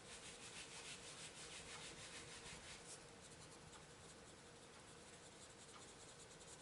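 Faint scratchy strokes of a coloured pencil shading back and forth on paper, a few strokes a second, stronger in the first half.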